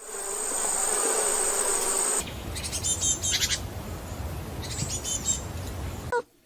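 An insect buzzing, a steady high whine over a lower buzz, for about two seconds. It is cut off into rougher noise with two short spells of high chirping.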